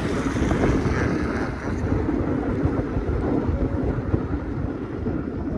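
Wind buffeting the microphone: a loud, uneven rumble that rises and falls with the gusts.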